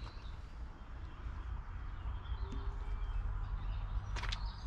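Footstep on gravel about four seconds in, over a steady low outdoor rumble with faint bird chirps.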